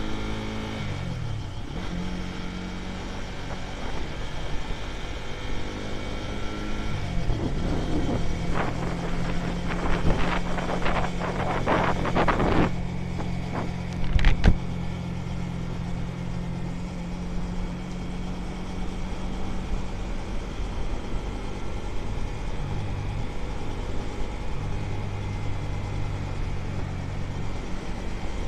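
Dayun Flasher 200 motorcycle engine running at road speed as the bike gathers pace, with wind rushing over the microphone. The engine's pitch falls about a second in. A stretch of hard wind buffeting comes in the middle, followed by one sharp knock.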